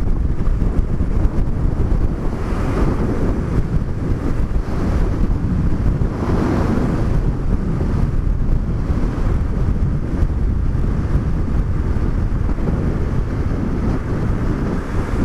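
Wind noise on the microphone of a motorcycle rider at road speed, a steady loud rush with the motorcycle's running underneath; the wind swells twice, around two and six seconds in.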